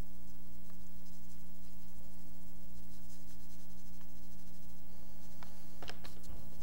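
Blue oil pastel stick scratching and rubbing lightly across drawing paper as a sky is coloured in, over a steady electrical hum. A few light clicks near the end as pastel sticks are set down on the table.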